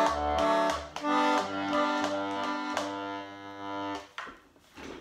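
Vintage Hohner diatonic button accordion playing a tune over pulsing bass notes. It ends on a held chord that stops about four seconds in, followed by a few faint clicks.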